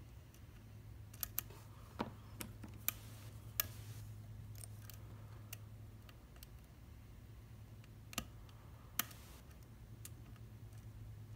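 Scattered sharp metallic clicks and ticks of a lock pick and tension tool working in an Abus C73 padlock, several close together and then two more a few seconds later, over a low steady hum.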